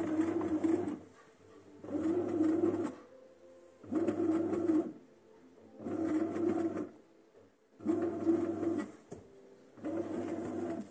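Bread machine's kneading motor turning the paddle through dough in pulses, running for about a second and pausing for about a second, six times over.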